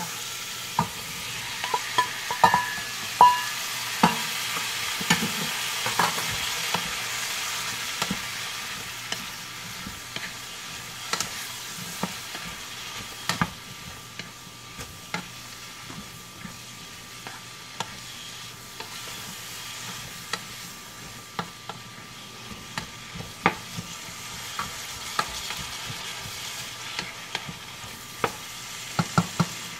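Diced bell peppers sizzling in hot oil in a small saucepan as they are tipped in and stirred with a wooden spoon, which knocks against the pan in sharp, irregular clicks. The sizzle is loudest over the first several seconds as the peppers go in, then settles, with a few short ringing clinks about two seconds in.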